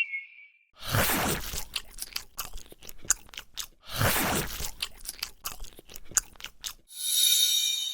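Crunchy biting-and-chewing sound effect: two loud crunches about three seconds apart, each followed by a run of crackly crunches. Near the end a bright shimmering chime begins.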